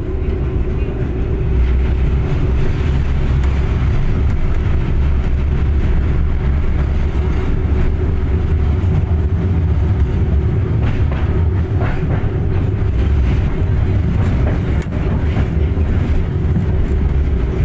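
Inside an MTTA tram underway: the steady low rumble of the car running on the rails, growing louder over the first two seconds and then holding.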